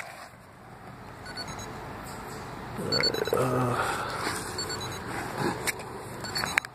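Wind buffeting the microphone, gusting louder in the middle, with a few faint short high beeps.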